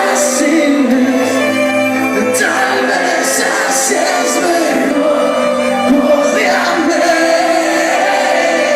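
Live band playing an unplugged, orchestral-style arrangement of a rock song, with singing over held instrumental chords.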